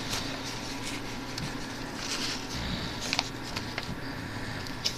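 A sheet of paper being handled and folded into a paper airplane: soft rustling with a few short, crisp crinkles and clicks as the paper is creased.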